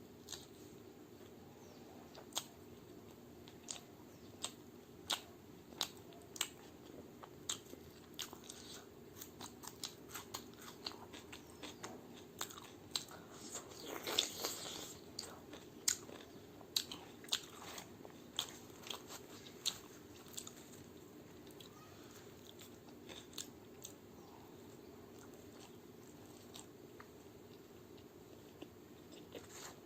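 Close-up sound of a person biting and chewing crunchy food from a plate of chole bhature with raw onion, chilli and cucumber: a run of sharp crunches, sometimes close together, for the first two-thirds, then softer chewing. A faint steady low hum lies under it.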